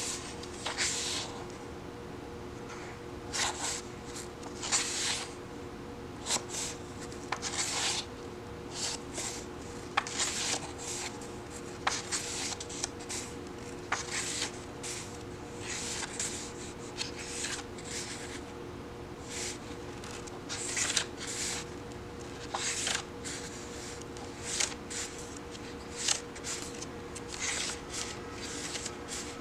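Pages of a softcover paperback book being turned by hand: irregular papery swishes and rustles every second or two, with a few sharp clicks, over a steady low hum.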